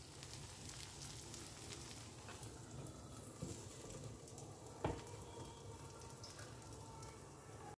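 Oats pancake batter sizzling faintly in ghee on a tawa. About five seconds in comes a single knock as a glass lid is set down over the pan.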